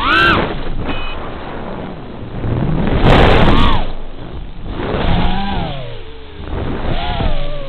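Brushless motors and propellers of a Furibee X215 Pro racing quadcopter, whining up and down in pitch as the throttle is worked through acro moves. The loudest surge comes about three seconds in, with further swells near five and seven seconds.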